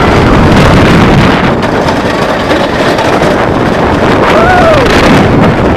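Wooden roller coaster train running fast on its track: a loud, steady rumble and clatter mixed with heavy wind buffeting the microphone. About four and a half seconds in, a rider gives a short rising-and-falling whoop.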